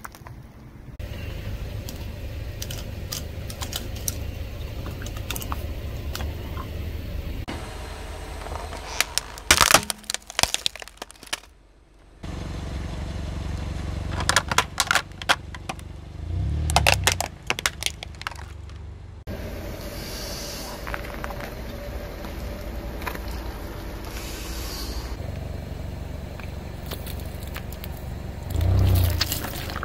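A car tyre rolls slowly over a series of objects and crushes them: walnut shells, a plastic toy dump truck, then plastic skull cups filled with water beads. It gives clusters of sharp cracks and crunches over the low, steady running of the car's engine, with two heavy low thumps.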